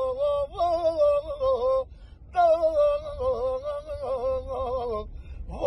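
A man singing in manele style: long, ornamented vowel runs with a wide vibrato, in one voice and with no instruments heard. The runs break off for a short breath about two seconds in and again near the end.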